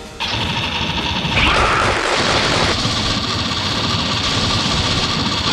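Continuous rapid automatic gunfire sound effects, several weapons firing at once in a dense barrage. It starts abruptly a moment in and keeps going.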